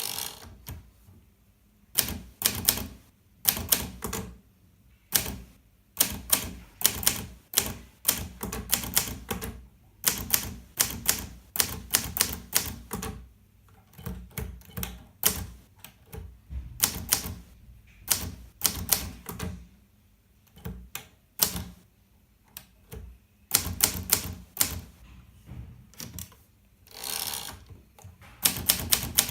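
Hermes 3000 portable typewriter being typed on: quick runs of key strikes clacking against the platen, in bursts with short pauses between them.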